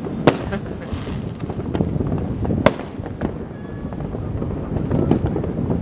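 Fireworks going off all around: a continuous rumble of distant bursts with sharp cracks and bangs scattered through it, two of them louder, near the start and about two and a half seconds in.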